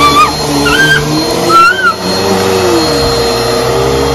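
Upright bagless vacuum cleaner running steadily on carpet, its motor holding a steady whine. Three short, high, rising-and-falling squeaky calls sound over it in the first two seconds.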